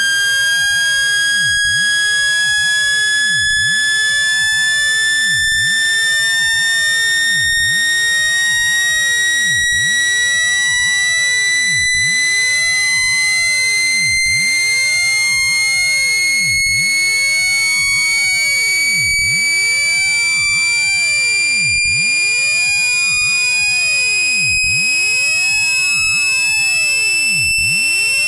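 Electronically generated speaker-cleaning tone: a loud, steady, high-pitched buzzy tone that climbs slowly and smoothly in pitch, played to vibrate water and dust out of a speaker.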